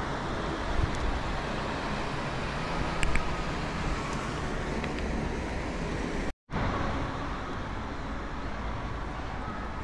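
Steady outdoor street ambience of road traffic, with a few light knocks. The sound cuts out for a moment about six seconds in.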